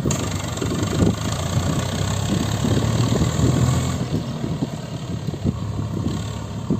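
Heavy diesel engine running at a steady speed.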